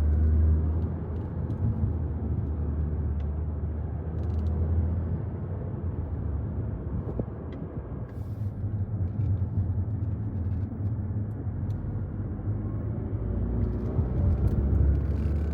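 Steady low rumble of a moving car: road and engine noise, with no sharp events.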